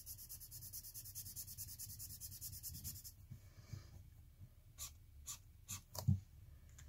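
Sharpie metallic gold marker scribbling rapidly back and forth on paper, about ten strokes a second, while it fills in a colour swatch. The scribbling stops about three seconds in, and a few short separate taps follow near the end.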